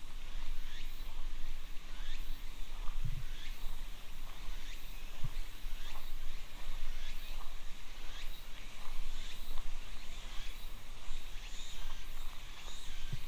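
Footsteps crunching on a gravel shrine path at a steady walking pace, about two steps a second, over a low rumble.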